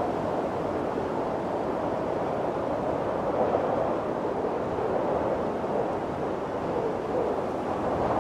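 Snowstorm wind blowing steadily, its rushing sound swelling and easing slightly.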